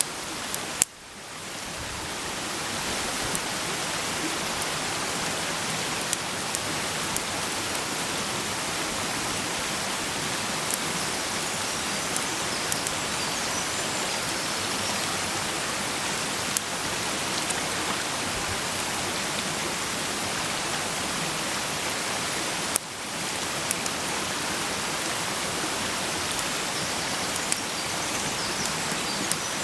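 Food sizzling in a frying pan over a campfire: a steady hiss with scattered sharp pops. The sizzle drops away briefly about a second in and again near 23 s, then builds back up.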